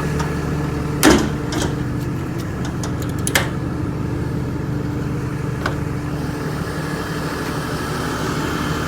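Ford F750's 6.7 Cummins diesel idling steadily. A few sharp clicks and knocks come over it: one about a second in, a quick run of clicks around three seconds in, and another near the middle.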